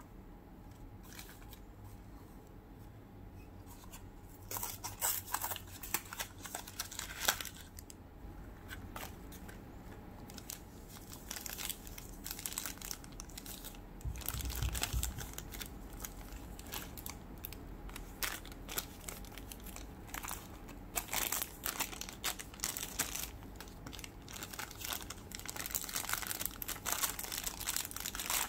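Thin clear plastic packaging bag crinkling and being torn open by hand, in irregular bursts of rustling that start about four seconds in, with a small cardboard box being handled and a dull bump near the middle.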